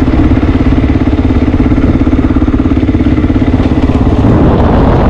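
Single-cylinder Honda XR dual-sport motorcycle engine running at steady riding speed, with a fast, even pulse.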